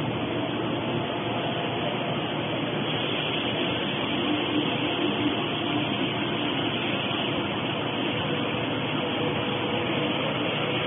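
Kneader and twin-screw extruder granulator line running: continuous, even machine noise with a few faint steady hums underneath, holding level throughout.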